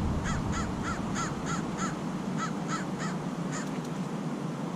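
A bird calling in a quick series of short notes, about three a second, about ten in all with a brief pause near the middle, over steady background noise.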